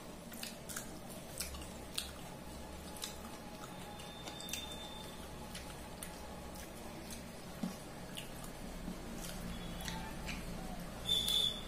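Fingers mixing rice and fish curry on a steel plate and eating it: soft squishing with scattered small clicks against the plate, and chewing. A brief high ringing tone sounds near the end.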